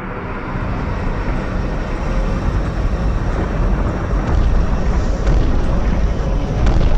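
Low, dense rumbling sound effect with heavy bass that slowly grows louder.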